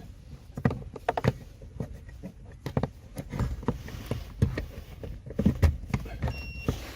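Irregular clicks and knocks as a scan tool's vehicle interface (VCI) is handled and plugged into the car's diagnostic port, with one short electronic beep near the end.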